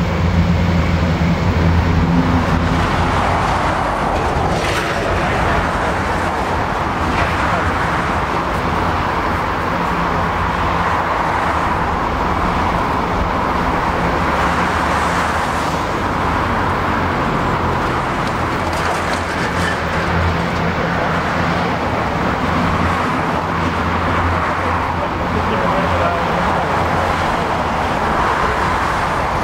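Airbus A400M's four Europrop TP400 turboprops with eight-bladed propellers running at low power as the aircraft taxis and lines up, a steady low propeller hum under a constant rush of engine noise.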